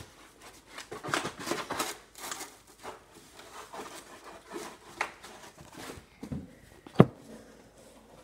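Rustling and handling noises, busiest in the first couple of seconds, with one sharp knock about seven seconds in.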